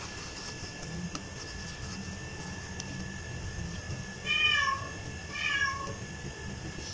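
A cat meowing twice, about four and five and a half seconds in, each meow short with a slightly falling pitch, over a steady faint high tone.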